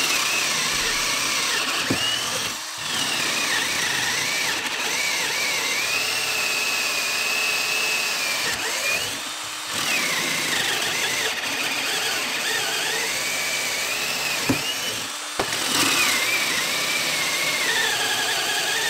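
HART cordless drill boring a row of holes into solid wood. Its motor whine wavers and sags in pitch under load, with three brief stops as it moves from one hole to the next.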